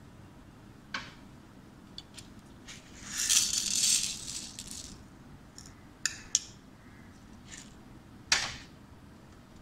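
Dry wheat grains poured and rattling against glass, loudest for about a second and a half starting three seconds in. Several sharp clicks follow, and a short rattle near the end as more grains drop into the glass Petri plate.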